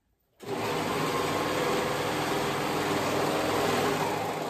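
Serger (overlock sewing machine) running steadily as it stitches a seam. It starts about half a second in and stops right at the end.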